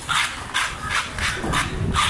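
Scales being scraped off a large mutton snapper by hand: repeated rasping strokes, about two a second.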